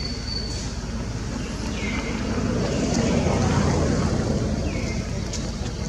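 Low motor-vehicle rumble that swells and fades around the middle, with a short falling call, likely a bird's, heard twice.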